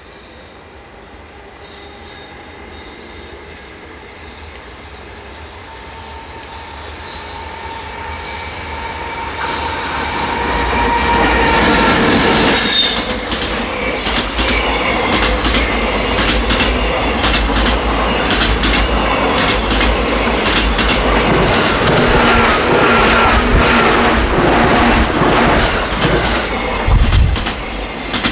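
A JR Freight container train approaching and passing close by: the sound builds over the first ten seconds, then the wagons roll past with steady wheel clatter over the rail joints and some high wheel squeal.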